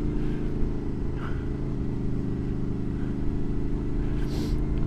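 Honda VFR motorcycle's V4 engine running at steady revs while riding, over a low rumble, with a brief hiss about four seconds in.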